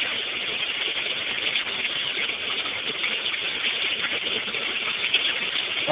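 Water running steadily into a washing machine tub as it fills from a garden-hose supply through the fill valve, an even rushing hiss.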